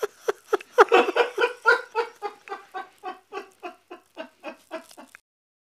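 A woman laughing helplessly in a long run of short 'ha' pulses, about four a second, that fade steadily and cut off suddenly about five seconds in.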